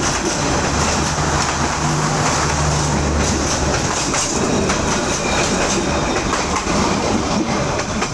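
Passenger train rolling past on the track: a steady rumble and clatter of wheels and carriages, with a low steady hum through the first three seconds or so.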